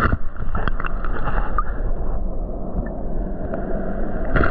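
Steady rushing of stream water with a heavy low rumble, mixed with wind on the microphone. A few small splashes or knocks come in the first two seconds, as hands grope in the water after crayfish.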